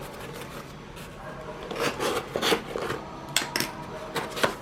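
A knife cutting open a package's wrapping: scraping and rustling, with several sharp clicks in the second half.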